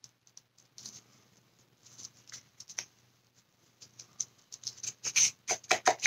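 Light clicks and scrapes of a small plastic cup and stir stick being handled by gloved hands, sparse at first, then quick and louder over the last two seconds.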